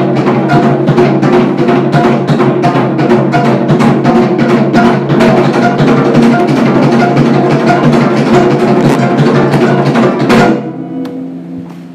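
Korean drum beaten in rapid, dense strokes with a stick over a gayageum's plucked strings. Near the end the music stops abruptly, leaving the strings ringing faintly.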